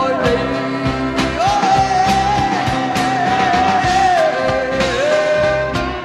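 Live acoustic rock band playing: a long sung note with vibrato, then a step down to a lower note, over strummed acoustic guitars and a steady drum beat.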